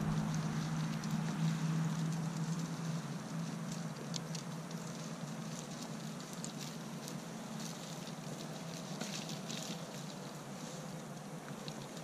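A vehicle's engine running with a low steady hum that slowly fades. Over it come scattered light rustles and snaps as goats pull and strip leaves from cut privet limbs.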